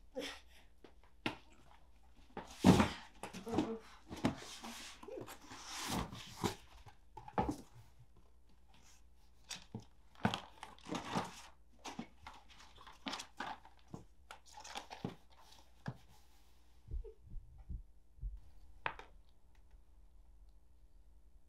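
Cardboard box being handled: put down with a thump about three seconds in, then its flaps opened and its contents rummaged through, with scraping, rustling and small knocks that thin out near the end.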